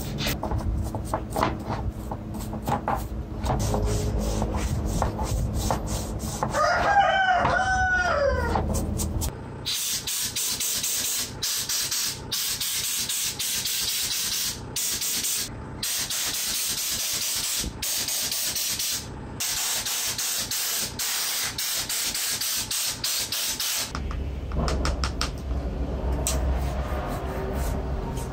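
A rooster crows once, about seven seconds in, over handling clatter and a low hum. From about ten seconds in, a long steady hiss of spraying runs, broken by short gaps, and stops a few seconds before the end.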